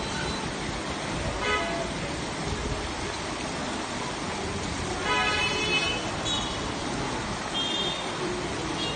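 Heavy rain pouring steadily, with vehicle horns honking over it: a short toot about a second and a half in and a louder, longer honk around five seconds in, then a few brief higher toots.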